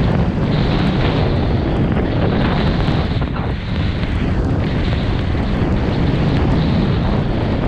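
Loud, steady wind buffeting a GoPro's microphone as the skier runs downhill on snow.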